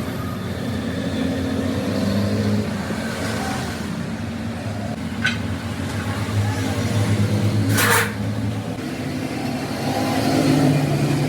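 An engine running steadily, its pitch shifting slightly, with a short hiss about eight seconds in.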